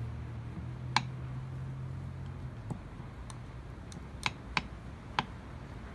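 A handful of sharp, light clicks at uneven intervals over a low steady hum that stops about halfway through.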